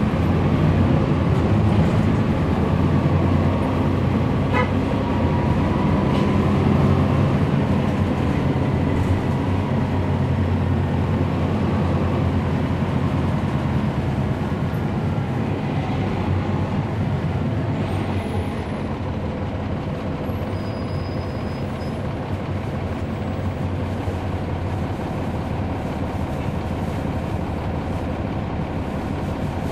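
Cabin sound of a 2011 NABI 416.15 transit bus under way: its Cummins ISL9 diesel engine and road noise make a steady low rumble, gradually easing a little.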